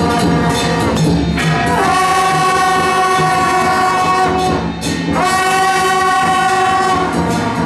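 Loud wind-band music from a temple procession: horns play long held notes that slide up into a new note about two seconds in and again about five seconds in, over a low pulsing beat.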